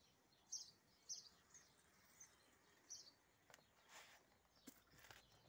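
Near silence with faint, short, high bird chirps repeating every half second to a second, then a few faint clicks near the end.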